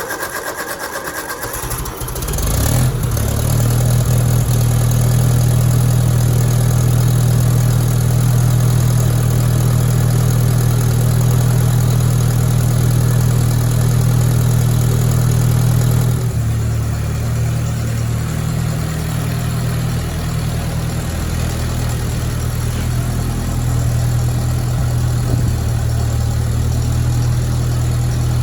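A Kubota tractor's diesel engine being cold-started. It cranks for about two seconds, then catches and runs steadily, and its note changes a little past halfway.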